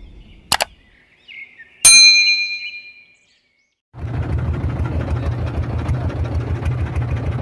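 A sharp click, then a loud bright metallic ding that rings out for about a second. After a short dead silence, a boat engine starts up in the mix about four seconds in, running steadily with a low rumble.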